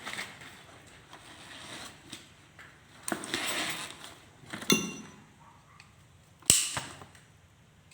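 Metal parts of a car window regulator being handled and fitted: a scraping rustle, a sharp click that rings briefly, then a louder sharp knock near the end.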